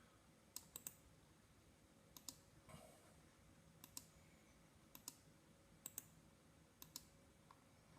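Computer mouse clicking: about six pairs of short, sharp clicks, roughly one pair a second.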